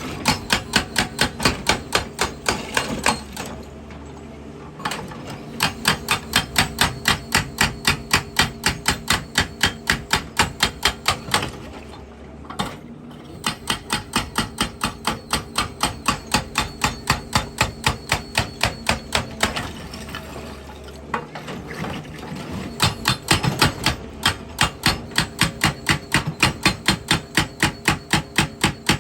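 Excavator-mounted hydraulic rock breaker hammering rock in rapid, evenly spaced blows, about three a second, over the excavator's engine. It stops briefly three times and starts again.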